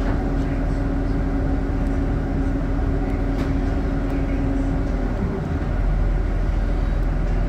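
Scania K94UB bus's nine-litre five-cylinder diesel engine and drivetrain running, heard inside the passenger cabin from the rear. A steady hum alongside the engine noise stops about five seconds in.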